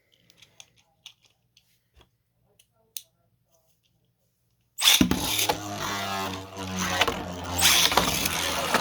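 A few light plastic clicks, then just under five seconds in two 3D-printed Beyblade spinning tops are launched into the stadium: a loud whirring and rattling with repeated sharp clashes as they hit each other.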